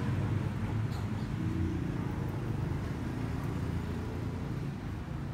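Steady low background rumble, with faint voices in the distance near the middle.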